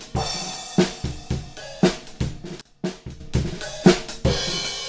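Multitrack drum recording played back: kick, snare and cymbals in a steady groove, the original drum mics blended with sample-replaced kick and snare.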